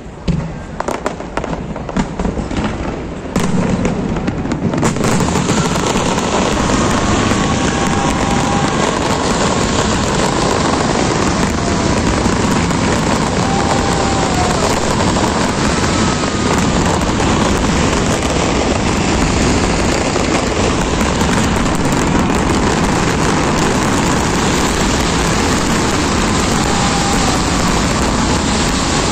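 Fireworks display: a few separate bangs in the first few seconds, then from about three seconds in a loud, dense, continuous barrage of bangs and crackle.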